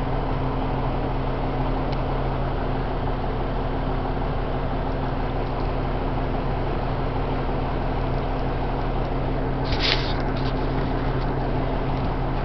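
An engine running steadily, a constant low hum. A brief sharp noise comes about ten seconds in.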